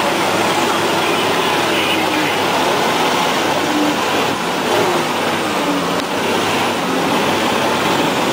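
A bulldozer's diesel engine running steadily.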